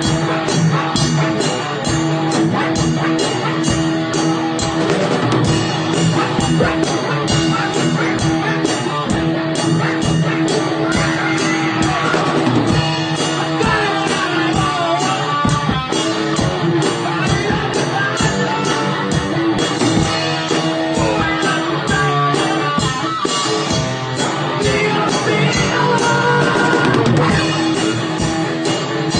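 Rock-style music with guitar, drum kit and singing, with a steady beat.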